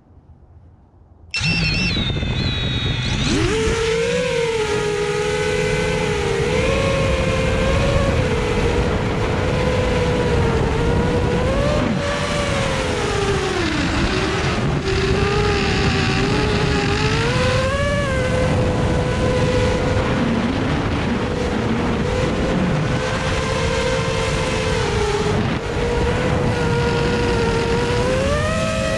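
FPV drone's electric motors and propellers spinning up suddenly about a second and a half in, then a loud buzzing whine whose pitch rises and falls with the throttle as it flies. Heard close from the drone's own onboard camera.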